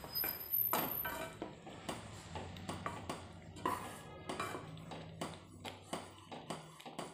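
A spoon knocking and scraping against an aluminium kadhai while stirring semolina halwa cooking in sugar water, with short irregular knocks two or three times a second.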